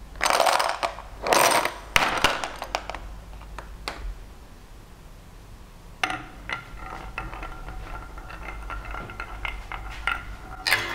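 Plastic marble-run balls clattering in a clear plastic tub as a hand rakes through them: two loud rattles, then scattered clicks. About six seconds in, a plastic ball is let go on a winding plywood groove track and rolls along the channel with a steady rolling sound and small knocks against the curved walls.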